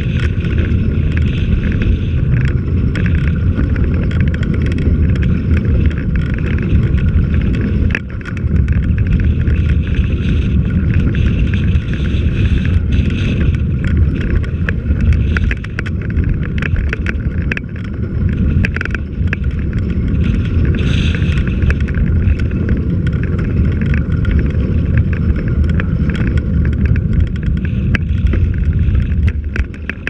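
Wind buffeting the microphone of a camera moving along the road, a loud, steady low rumble, with frequent small clicks and rattles from the ride over rough pavement. It dips briefly about eight seconds in and again near the end.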